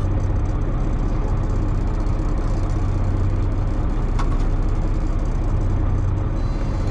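Fishing boat's engine running steadily at idle: a constant low hum, with one faint click about four seconds in.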